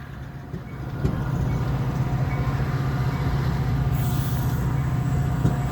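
Metra commuter train with an EMD F40PH-3 diesel locomotive going by: a steady low engine drone that swells about a second in and then holds, with a short hiss around four seconds.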